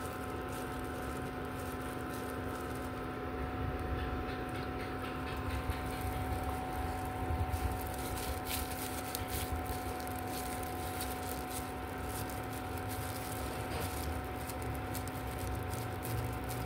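Wheat-gluten patties frying in shallow oil in a pan: a low, steady sizzle with scattered small pops and crackles. A steady electrical hum with a few fixed tones runs underneath.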